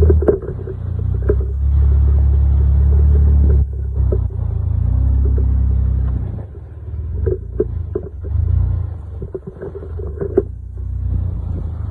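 Jeep Wrangler engine rumbling at low speed as it crawls over rocks and onto a sandy trail, with scattered knocks and clicks from the rocky ground under the tyres. The rumble eases about four seconds in and again a couple of seconds later.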